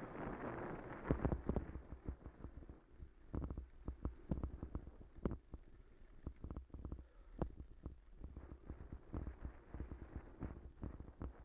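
Bicycle jolting over stone setts: an irregular, rapid run of knocks and rattles as the wheels and handlebar-mounted camera shake over the cobbles, starting about a second in after a brief rushing noise.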